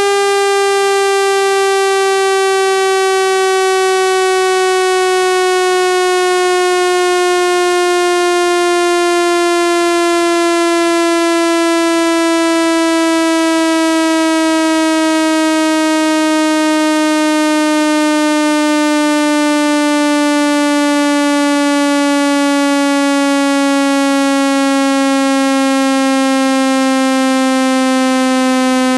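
Speaker-cleaner tone: a loud, buzzy synthesized tone full of overtones, sliding slowly down in pitch over a faint hiss. It is played to push water and dust out of a phone speaker.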